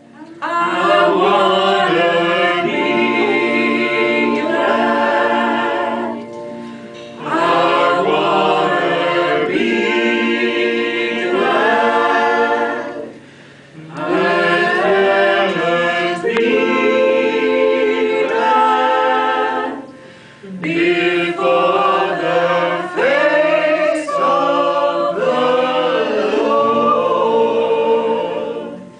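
Choir singing a cappella in a gospel style, in four phrases of about six to eight seconds with short breaks between them.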